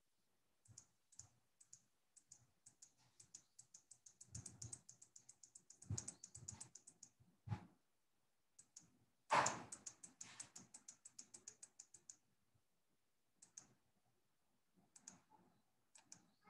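Faint typing on a computer keyboard: two long runs of quick key clicks, several a second, then a few scattered keystrokes, with one louder knock about nine seconds in.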